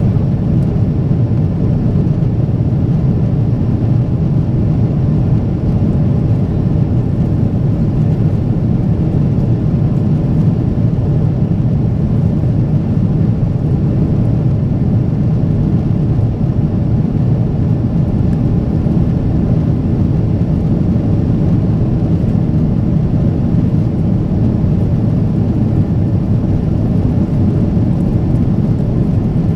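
Steady, loud low rumble of a Boeing 777-300ER's GE90 jet engines and airflow, heard from inside the passenger cabin.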